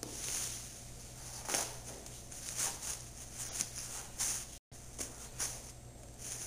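Scattered soft scuffs and rustles of a sneaker being handled, its tongue and loose laces tugged, over a low steady hum. The sound cuts out for an instant a little after halfway.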